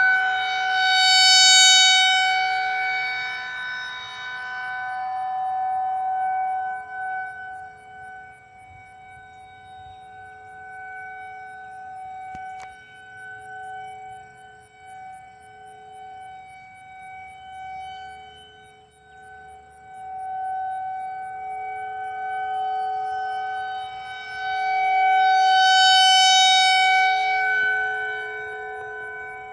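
Outdoor tornado warning siren sounding a steady, unchanging pitch during its monthly test. It swells loud in the first couple of seconds, fades back for a long stretch, then swells loud again near the end.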